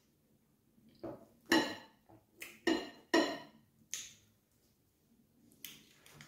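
Eating sounds of fufu and soup being eaten by hand close to the microphone: about seven short, wet smacks, squelches and chews, the loudest in the middle.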